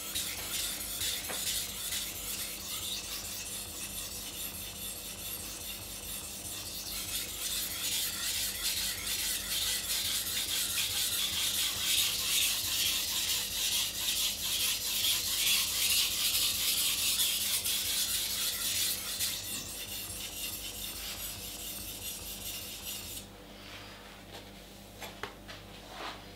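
Steel blade of a Global kitchen knife scraping back and forth on a sharpening stone in repeated rasping strokes, loudest midway. The strokes stop a few seconds before the end, followed by a couple of light clicks.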